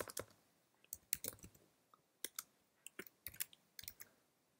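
Faint computer keyboard typing: scattered key clicks in short, irregular runs.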